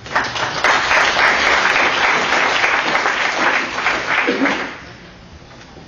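Audience applauding: the clapping starts suddenly and dies away after about four and a half seconds.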